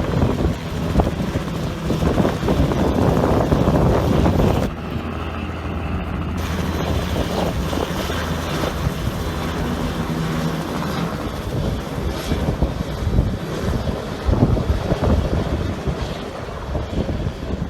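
Helicopter taking off, its rotor and turbine running steadily with a noisy rush; the sound shifts about five seconds in.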